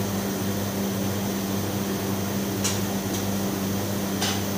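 Steady deep hum of commercial kitchen refrigeration and ventilation machinery. Two short sharp clicks come about two and a half seconds and four seconds in.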